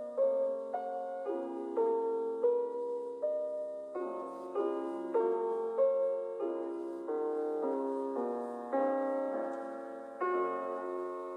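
Background music: solo piano playing a gentle melody over chords, each note struck and dying away.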